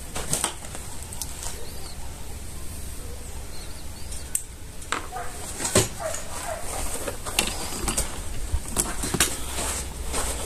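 Footsteps on a dirt and gravel range, uneven crunches about once a second, over a steady low wind rumble on the microphone. A few short bird chirps are heard along the way.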